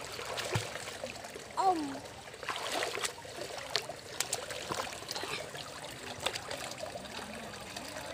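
Swimming-pool water splashing and sloshing as a child paddles in a life jacket, with many small sharp splashes. A short voice-like sound with a bending pitch about a second and a half in is the loudest moment.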